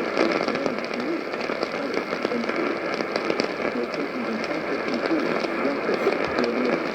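Radio reception with heavy hiss and crackling static, a faint voice from the broadcast coming through underneath.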